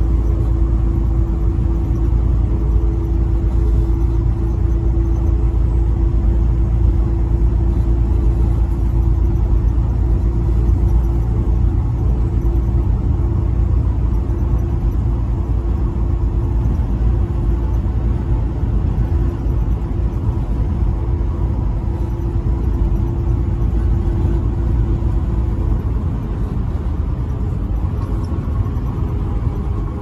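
Semi-truck cruising at highway speed, heard from inside the cab: a steady low engine and road rumble with a constant hum that drops away near the end.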